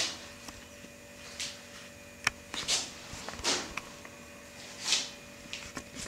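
A printed cardboard viewer being handled close to the microphone: a few sharp clicks and several short papery swishes, over a faint steady hum.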